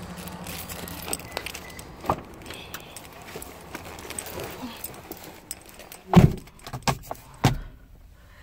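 Car keys jangling with scattered small clicks, then a few heavy thumps about six to seven and a half seconds in, the first the loudest: a car door being opened and shut as someone gets into the driver's seat.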